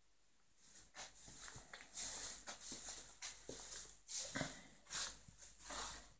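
Footsteps and rustling of a person walking with a handheld camera: irregular soft scuffs and knocks with hiss, from about half a second in until just before the end.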